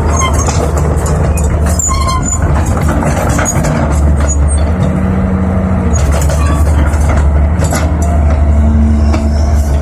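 Diesel engine of a 320 hydraulic excavator running steadily with a deep rumble. Frequent metallic knocks and clanks from the machine's work are heard over it.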